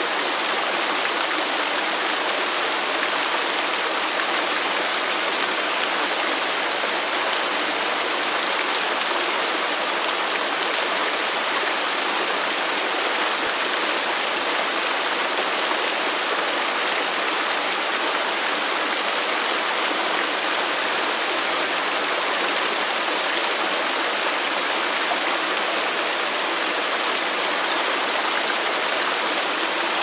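Waterfall: steady rushing water, an even hiss with no breaks.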